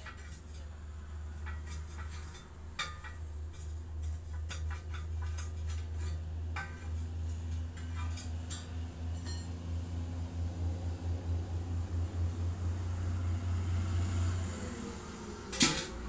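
Scattered metallic clinks and knocks as a tractor front tyre is worked off its steel wheel rim by hand, with one louder knock near the end. A steady low hum runs underneath and stops about a second and a half before the end.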